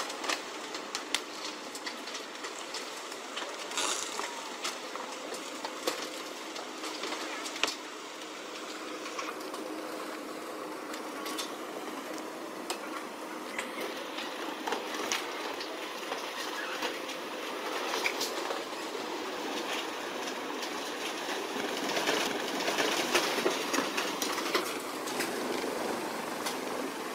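Churning water from a cargo ship's propeller wash, with many sharp cracks and creaks as small motorboats are crushed between the ship's hull and the pier; it grows louder near the end.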